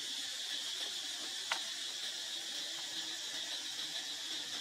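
A steady high-pitched hiss-like drone, with one sharp click about a second and a half in.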